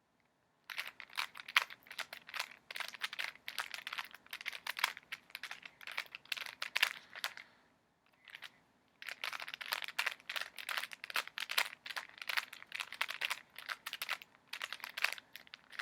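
Rubik's Cube being turned in quick twists while the last layer is solved: rapid plastic clicking and clacking, breaking off briefly about eight seconds in, then resuming.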